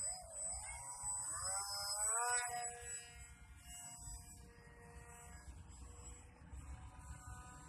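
The motor and propeller of a small homemade RC plane buzzing, its pitch climbing over the first two and a half seconds as it speeds up, then holding steady.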